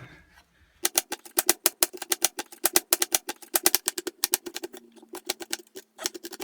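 Knife chopping a red onion on a cutting board: a fast run of sharp knocks, several a second, starting about a second in.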